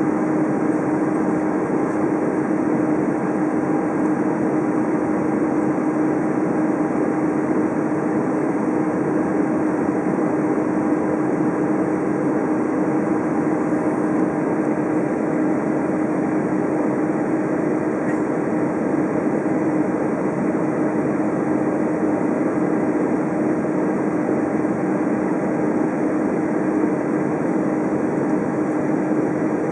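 Steady jet-engine drone and hum inside an Airbus A320's cabin on the ground, with one strong constant tone under an even rush of noise.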